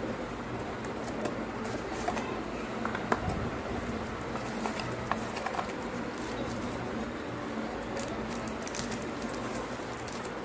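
Hands handling packaging: crinkling and rustling of a small paper wrapper, with scattered light clicks and taps against a cardboard box, the sharpest tap about three seconds in, over a steady background hiss.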